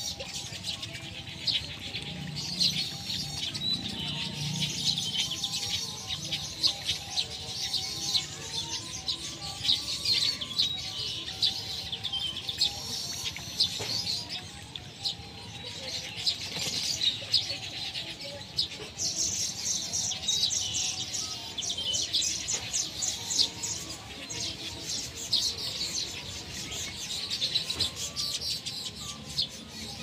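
Many birds chirping and whistling in a dense, high, unbroken chorus, with the wing flaps of lesser whistling ducks bathing in shallow water.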